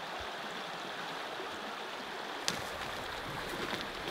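A creek running steadily. There is a sharp snap about two and a half seconds in, then light rustling as boots step through the forest undergrowth.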